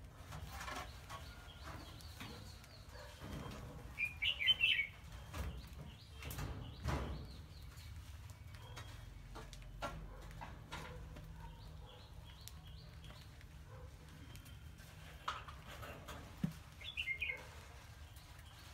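Mice scurrying and scratching over loose sand, a faint rustling with small scrapes and clicks, broken twice by a short burst of quick high squeaks, about four seconds in and again near the end.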